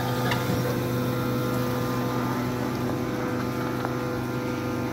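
Sunnen honing machine running with a steady hum while a connecting rod's big end is honed on its stone mandrel, resizing the bore to spec after new ARP rod bolts distorted it.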